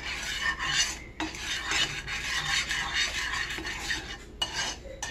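Slotted spatula stirring wet, undissolved sugar in a small frying pan, the grains scraping gritty across the pan bottom in repeated strokes, with brief pauses about a second in and near the end.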